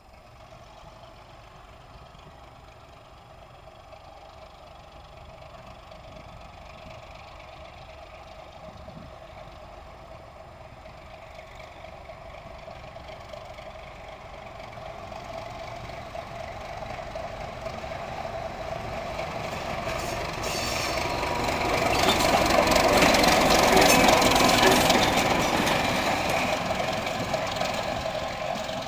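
Class 751 diesel locomotive hauling a freight train, approaching and passing. Its six-cylinder diesel engine and the wheels on the rails grow steadily louder, peak a little over twenty seconds in, then fade as it moves away.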